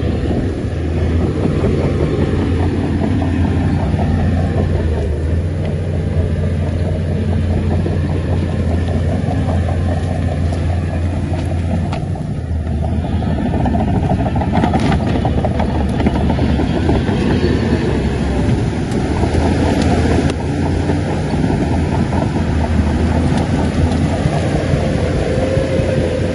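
Shantui crawler bulldozer working: its diesel engine runs steadily under load while the steel tracks clank and clatter continuously.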